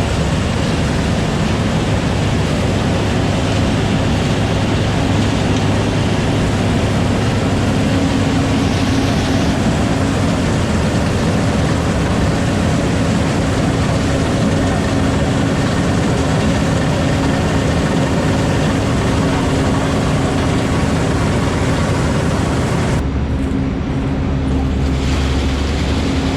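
Tractor engine running steadily, a low hum under a wide mechanical noise. Near the end the sound changes abruptly, losing its high end as a deeper hum comes in.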